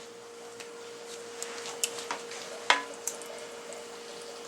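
A kitchen utensil spreading tomato sauce across a lasagna layer in a baking dish: soft wet scraping with small clicks, and one sharper clink against the dish about two-thirds of the way through.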